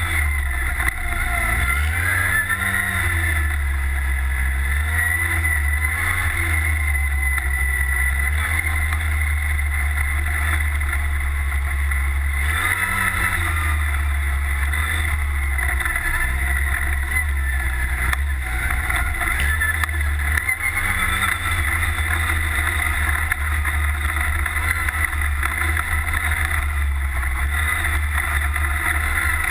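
Redline Revolt off-road buggy's engine running under load, its revs rising and falling repeatedly as it is driven along a rough dirt track, over a heavy, steady low rumble.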